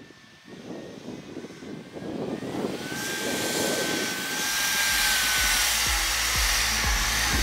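Jeep Wrangler LJ driving up through deep snow, its engine and tyres growing from faint to a steady level as it comes closer, with a low engine rumble setting in about two-thirds through. A thin steady whine sounds for a couple of seconds midway.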